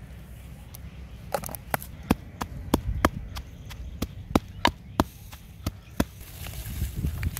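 Wooden pestle pounding a spice paste in a clay mortar: a regular run of sharp knocks, about three a second, starting about a second in and stopping about six seconds in.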